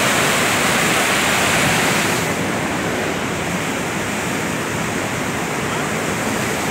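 Muddy floodwater of a swollen river rushing past a bridge pier: a loud, steady rush of water that turns slightly quieter and duller after about two seconds.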